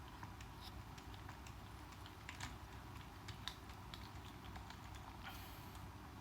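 Faint, scattered light clicks and ticks of small screws and plastic parts being handled while a small RC car is taken apart, with a few slightly sharper clicks about halfway through.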